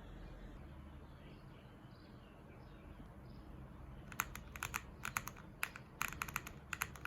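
Typing on a mechanical keyboard fitted with cat-claw keycaps: after a few seconds of faint background, quick runs of crisp keystroke clicks begin a little past halfway.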